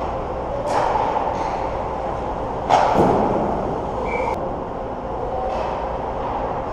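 Ice hockey play close to the net: skate blades scraping and carving on the ice over a steady rink rumble, with a sharp knock about three seconds in that is the loudest sound, and a lighter one near the start.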